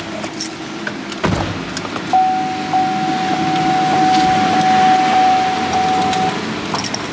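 Car sounds as someone moves at an open car door: a knock about a second in, then a single steady tone from the car that lasts about four seconds and stops.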